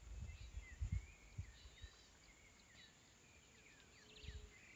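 Faint birdsong in the background, scattered short chirps and whistles, with a few soft low thumps of handling noise.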